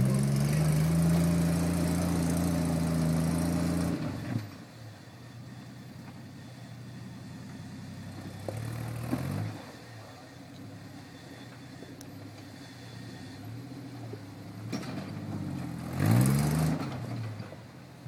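Rock-crawling Jeep's engine held at high revs for about four seconds, then dropping to a low idle, with a short rev-up about halfway, a few light blips, and another hard rev near the end as it works its way over boulders.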